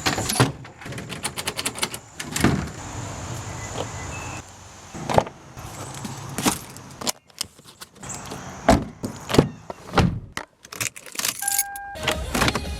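Keys jangling and car door thuds, with a short electronic beep near the end, then a car engine running steadily.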